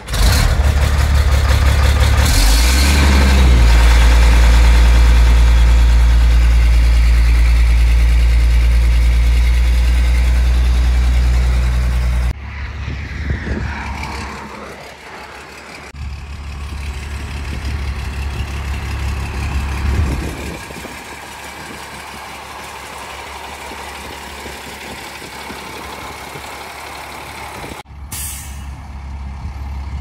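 Diesel engines of corn-harvest machinery running. A loud, steady engine drone shifts up in pitch about two and a half seconds in, then cuts off abruptly about twelve seconds in. Quieter machinery follows, running with the engine rising and falling, and there is another abrupt change near the end.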